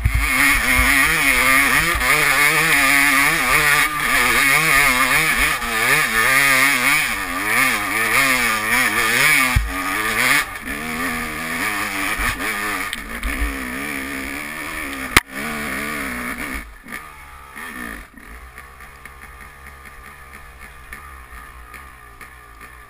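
Yamaha YZ250 two-stroke dirt bike engine revving hard up and down under load on a steep hill climb for about ten seconds, then easing off. A sharp knock comes about fifteen seconds in, and from about eighteen seconds the engine runs much quieter.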